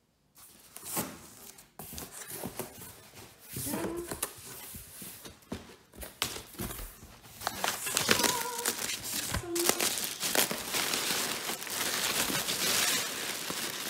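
Brown paper packing in a cardboard box being rustled and crumpled by hand, a busy crackling rustle with small knocks of cardboard, starting about half a second in and growing fuller after the middle.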